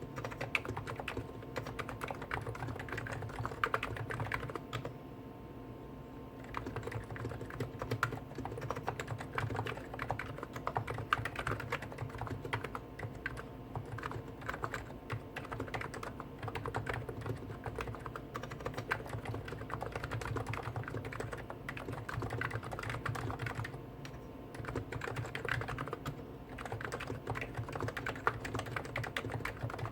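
Two Hansung GTune electrostatic capacitive keyboards, a CHF4 Snow White with 50 g switches and a CHF7 OfficeMaster with 55 g switches, typed on at the same time. Rapid, continuous keystrokes pause briefly about five seconds in and again near the 24-second mark, over a steady low hum.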